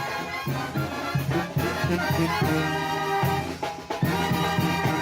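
Mexican banda music: a brass band with trumpets and trombones playing a melody over a rhythmic bass line.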